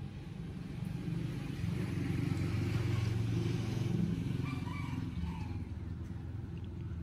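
A motor vehicle's engine passing by: a low hum that grows louder to a peak a few seconds in, then fades.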